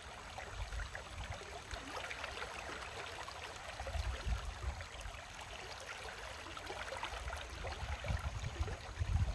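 Shallow river water flowing and trickling steadily, with irregular low rumbles underneath.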